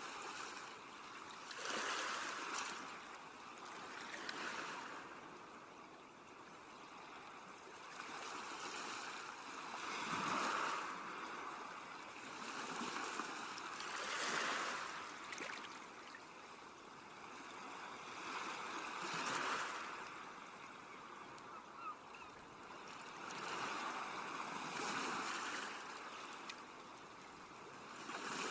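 Sea waves washing onto a shore, each one swelling and falling back every four or five seconds.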